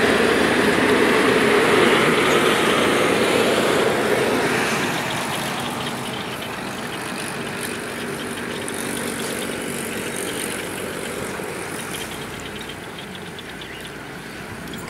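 A steady engine-like running noise, loudest in the first few seconds and fading after about five seconds.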